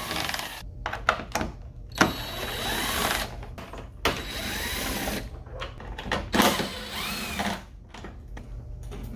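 Cordless drill with a 10 mm socket backing out headlight mounting bolts. It makes four short runs, the motor speeding up and winding down each time, with clicks and clatter from the tool and socket between runs.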